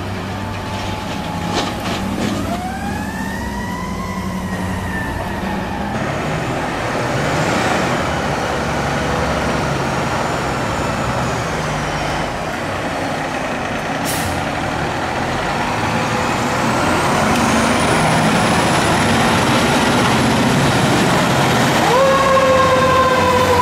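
Fire engines responding with sirens, the siren rising and falling over the steady run of their diesel engines. There is a short hiss about halfway through, and near the end a loud siren tone comes in suddenly and slowly falls in pitch.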